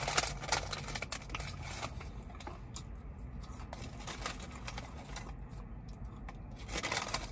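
Paper fry sleeve crinkling and rustling as fingers pick curly fries out of it. The crackling is busiest in the first couple of seconds and again near the end.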